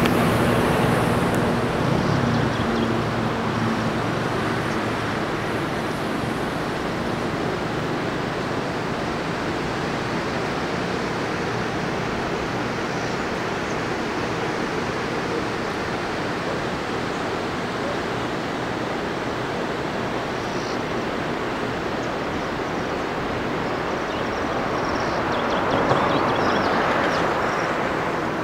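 Steady outdoor rushing noise with no distinct events, swelling slightly near the end.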